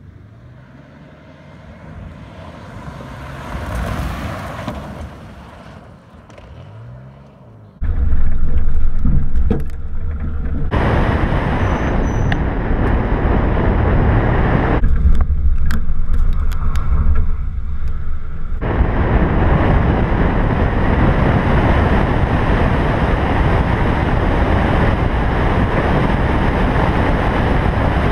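Pontiac Grand Prix GTP coming up a gravel road and passing by, its sound swelling and fading. About eight seconds in, it gives way to loud, steady wind and gravel road noise from a camera on the car's hood as it drives fast on the dirt road, with scattered sharp ticks.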